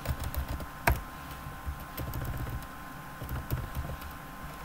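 Computer keyboard being typed on: a scattering of light key clicks, with one sharper key press about a second in.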